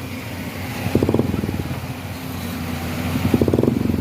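Motorcycle engine running, briefly getting louder twice: about a second in and near the end.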